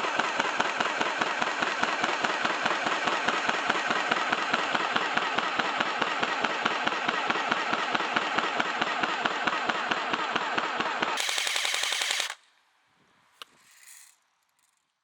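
LCT RPK airsoft electric gun firing on full auto: one long continuous burst of rapid, even shots that stops suddenly about twelve seconds in. A single faint click follows.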